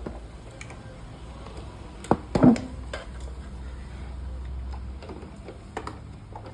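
Handling noises while unpacking a robot vacuum cleaner: scattered clicks and knocks over a low rumble, with a short, loud clatter about two seconds in.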